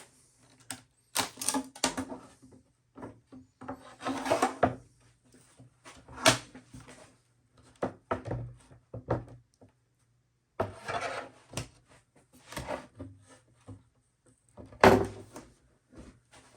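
Clamps being loosened and taken off a freshly glued wooden panel: irregular clicks, rattles and knocks of metal and wood, with the loudest knock near the end.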